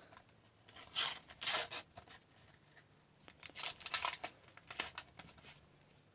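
A sticker-pack wrapper being torn open and crinkled by hand, in a few short rasping tears.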